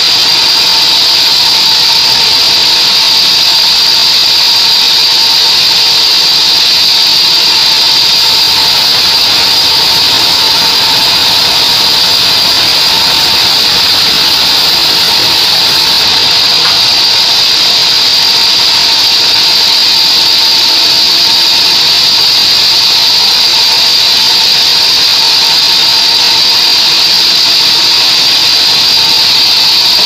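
Sawmill band saw running and cutting lengthwise through a mahogany board: a loud, steady machine whine with a high hiss over it, unchanging throughout.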